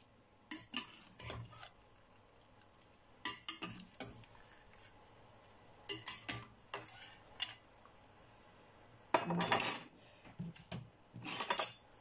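Metal slotted skimmer clinking and scraping against an enamel saucepan and a plate as boiled dumplings are scooped out of the water: scattered single knocks, with longer runs of clatter about nine seconds in and again near the end.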